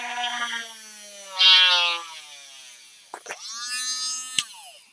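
Chicago Electric rotary tool with a small drill bit whining at high speed, its pitch sagging as the bit bores into the material, with a loud scraping burst about a second and a half in. About three seconds in it clicks on and spins up again, then clicks off near the end and winds down.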